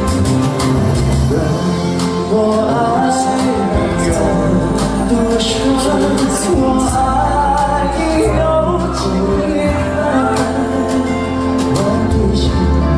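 Two male singers singing a Thai pop duet live into handheld microphones, with melodic instrumental accompaniment and held sung notes.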